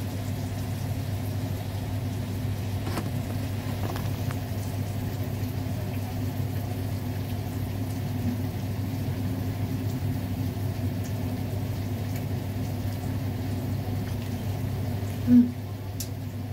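A steady low mechanical hum, with a couple of faint clicks a few seconds in and a short louder sound near the end.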